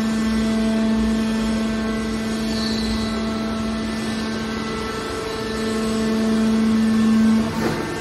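Hydraulic scrap-metal baler running, its power unit giving a steady pitched hum with overtones. The hum grows louder and then its main tone drops away shortly before the end.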